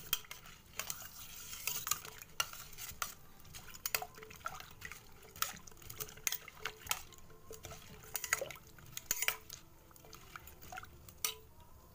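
Steel ladle stirring cut taro (arbi) pieces in salted water in a stainless steel bowl: irregular ringing metal clinks and knocks against the bowl, several a second, with water sloshing, thinning out near the end.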